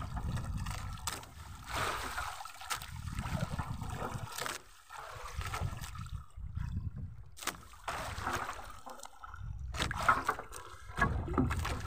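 Choppy sea water sloshing against a small fishing boat's hull, rising and falling, with a few sharp knocks.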